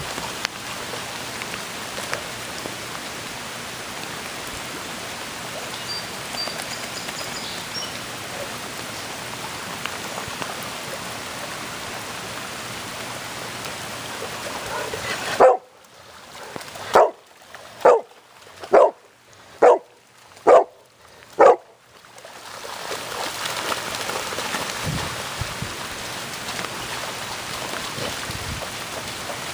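Steady rain falling on grass and standing water. About halfway in, a golden retriever barks seven times, roughly one bark a second, and the rain hiss drops away under the barks.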